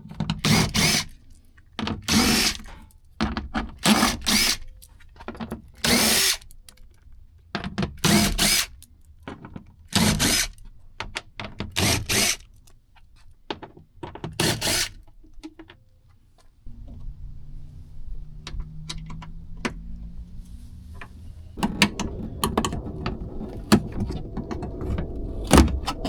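Cordless drill-driver running in a dozen or so short bursts, backing out the bolts and T30 Torx screws that hold a Jeep door's inner panel and latch mechanism. After about 16 seconds it gives way to a quieter steady low hum and some handling clatter.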